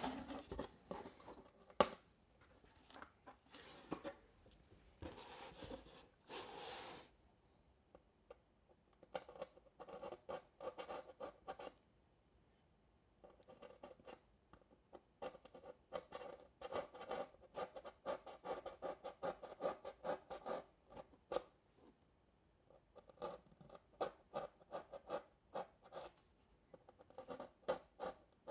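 A hobby knife blade cuts through paper-faced foam board, scratching and rasping. A few longer drawn strokes come in the first seconds, then quick short strokes in bursts with brief pauses.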